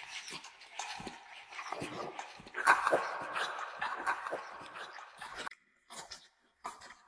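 A dog eating at close range: a quick run of wet chewing and smacking sounds, loudest about midway, breaking off into short pauses near the end.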